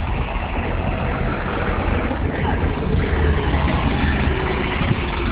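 Mobile crane's engine running steadily with a deep rumble.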